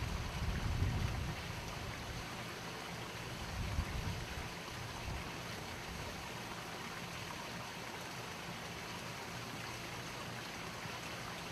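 Steady outdoor hiss with low wind rumble on the microphone in the first second or so and again briefly about four seconds in.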